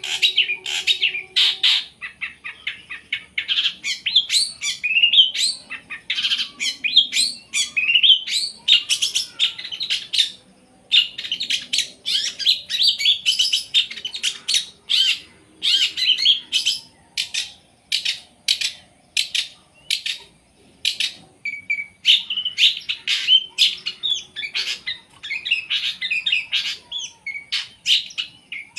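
Long-tailed shrike (cendet) singing continuously: a fast string of sharp chirps and varied phrases, delivered in quick bursts with short pauses.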